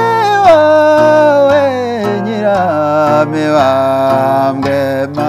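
Inanga, the Rwandan trough zither, plucked in a regular pattern under a man singing long, sliding held notes in the traditional gakondo style.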